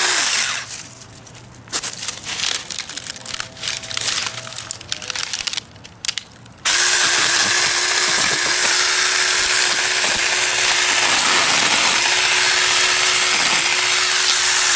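Battery-powered mini chainsaw: the motor stops right at the start, leaving a few seconds of light rustling and clicks from the brush, then it starts again and runs steadily, its whine sagging briefly several times as the chain bites into small stumps at ground level.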